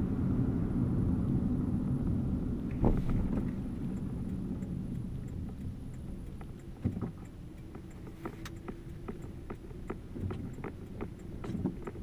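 Car cabin noise while driving on a snowy, slushy road: a low rumble of tyres and engine that eases off about four seconds in, followed by a scattering of light clicks and ticks.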